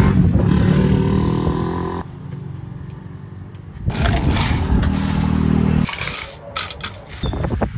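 Ice tipped from a scoop into a plastic cup, rattling and scraping, with a few sharp clinks near the end, over a steady low droning hum.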